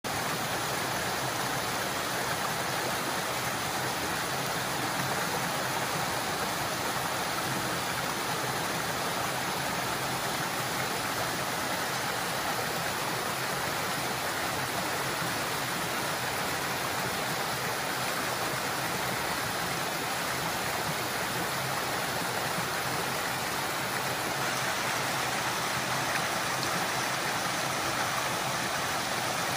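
Waterfall sliding down a steep rock face into a pool, with small cascades spilling between boulders, making a steady, even rush of water.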